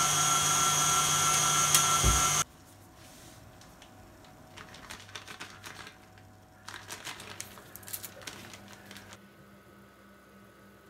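KitchenAid stand mixer running steadily with a whining motor as it mixes meringue, cutting off abruptly about two and a half seconds in. Then faint rustling and crinkling of a plastic piping bag being filled and squeezed.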